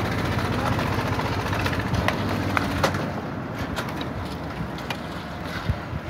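Engine-driven construction machinery running at a concrete slab pour: a steady low rumble with scattered sharp clicks and knocks, easing slightly about three seconds in.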